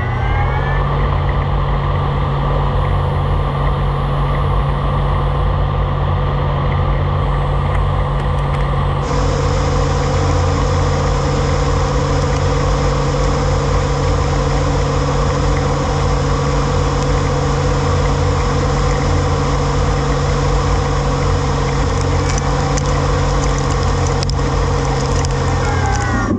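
Puma 2600SY II CNC lathe milling a Teflon (PTFE) part in simultaneous four-axis motion: a steady, loud machine hum with several steady whining tones. About nine seconds in, a brighter hiss joins and one whining tone grows stronger.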